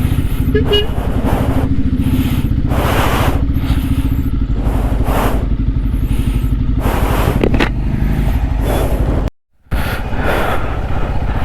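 Motorcycle engine running steadily while riding, with rushes of wind noise and a short horn toot about a second in. The sound drops out completely for a moment about nine seconds in.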